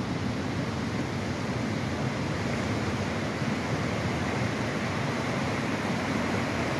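Steady rush of a shallow river flowing over rock ledges and small rapids.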